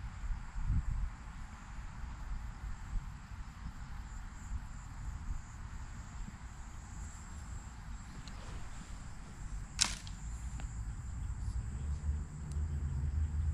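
Wind rumbling on the microphone with a thin, steady high insect drone. About ten seconds in there is one sharp crack, the loudest single sound.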